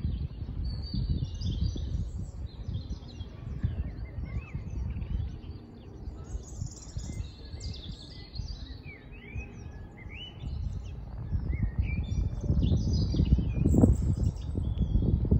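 Songbirds singing and chirping in short, varied phrases, over a low, uneven rumbling background noise that grows louder near the end.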